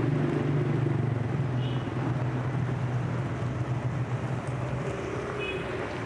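A motor vehicle's engine running, a steady low hum that fades away about five seconds in, over a steady hiss.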